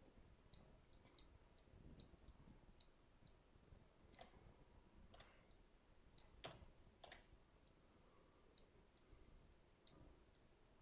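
Near silence with faint, irregular computer mouse clicks as the left button is pressed and released while sculpting. A few sharper clicks come in the middle.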